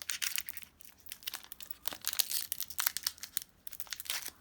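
Foil wrapper of a Pokémon booster pack crinkling as it is handled and pulled open by hand, a quick run of crackles.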